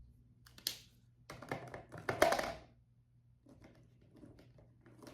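Drawing on sketchbook paper: a sharp tap, then about a second and a half of scratchy rubbing strokes, followed by faint light strokes.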